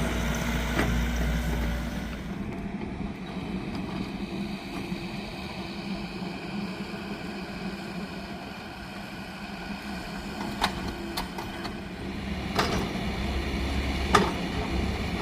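An engine running steadily, with a heavier low rumble at the start and again near the end, and several sharp knocks or clanks in the second half.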